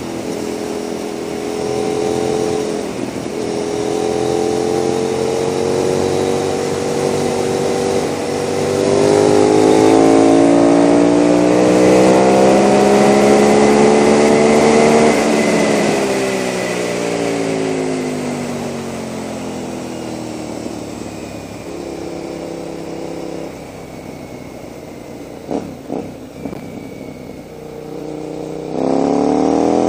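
KTM 990 SMR V-twin motorcycle with a Leo Vince exhaust, heard from the rider's seat: it pulls hard with the revs climbing for about fifteen seconds under rushing wind, then drops off the throttle and runs low and quieter, with a couple of short thumps. Near the end it opens up again in a sharp, rising acceleration.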